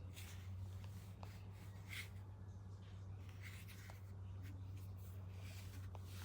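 Faint handling sounds, light rubs and a few soft clicks, over a steady low hum.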